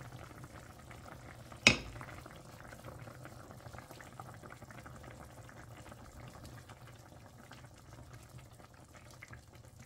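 Pan of steamed snapper simmering, a soft steady bubbling and crackle over a low hum. One sharp clink of metal on the pan comes about one and a half seconds in.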